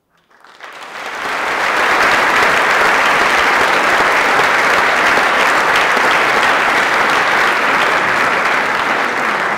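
Concert audience applauding after an orchestral piece. The clapping starts about a third of a second in, swells to full strength within about a second, then holds steady and loud.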